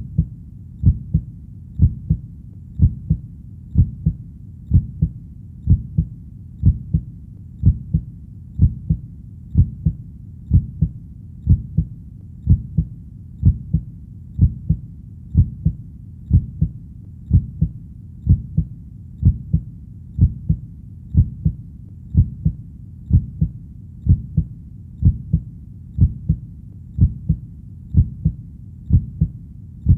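Heartbeat: a steady lub-dub of two low thumps, about one beat a second, over a faint low hum between beats.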